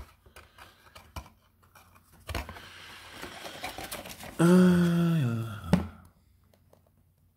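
Styrofoam and plastic packaging being handled: light rustling and clicks, with a sharp knock a little after two seconds and another near the six-second mark. About four and a half seconds in, a short hum sounds that falls in pitch near its end.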